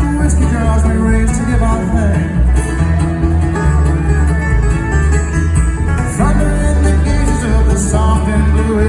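Bluegrass band playing live: plucked string instruments with bending melodic lines over a steady, heavy bass.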